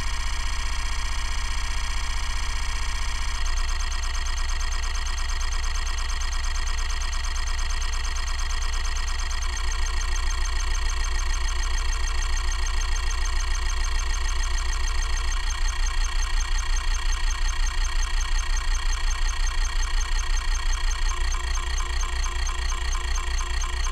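Kalok KL3100 105 MB hard drive's stepper-motor head actuator seeking continuously in a fast, even buzzing rhythm over the spindle motor's spin. The seek rhythm changes every six seconds or so.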